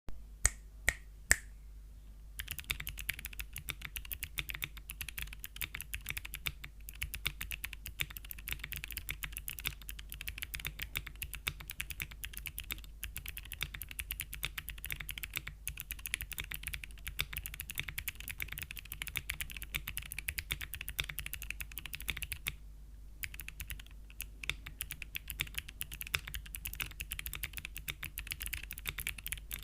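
Typing on a Geonworks F2-60 mechanical keyboard with Gateron Melodic clicky switches in an aluminium plate, each keystroke a sharp click. It opens with three single loud key presses, then fast continuous typing with a brief pause about three-quarters of the way through.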